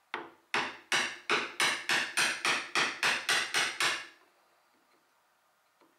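A bench chisel struck repeatedly with a mallet, about a dozen sharp blows at roughly three a second, chopping out the waste between dovetail tails. The blows stop about four seconds in.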